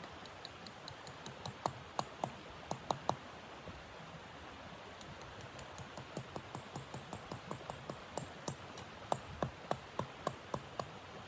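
A rapid series of sharp clicks and snaps, in irregular runs of a few per second, over a steady hiss.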